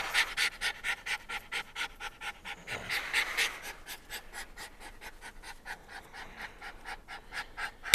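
Dog panting rapidly and evenly close to the microphone in a vehicle cab: the heavy breathing of an excited dog.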